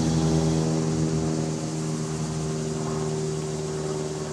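A steady engine-like drone at a constant pitch, easing off slightly near the end.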